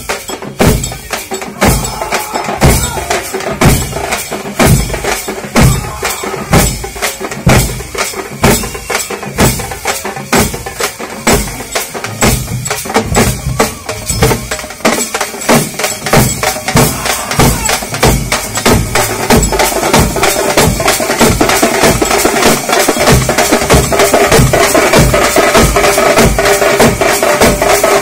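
A group of drums played together in a fast, steady, driving rhythm, getting louder in the second half.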